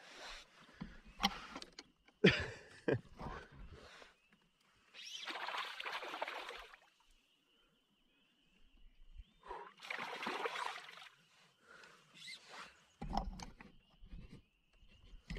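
Handling noise in a canoe: a few sharp knocks against the hull or gear in the first seconds, then two noisy swishes, each about a second and a half long, about five and ten seconds in. A faint thin high tone holds steady through the middle.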